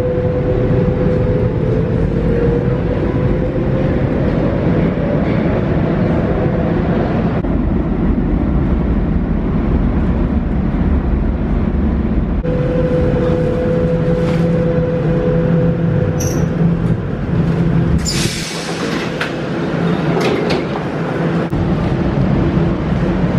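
Lisbon Metro train running through a tunnel: wheels rumbling on the rails, with a motor whine that rises in pitch as it pulls away. About three-quarters of the way in, a short hiss as it comes into a station.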